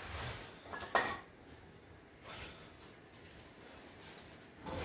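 One sharp metal clink about a second in, then faint scraping and handling noises from metal parts and tools being worked under the car.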